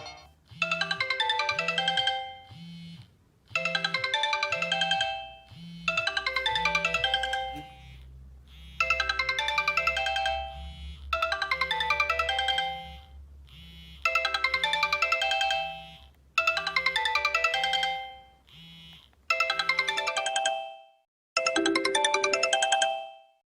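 Sony Xperia stock ringtone: a bright electronic chime melody looping, one phrase about every three seconds over a steady pulsing bass line. Near the end the bass drops out and a different ringtone phrase plays.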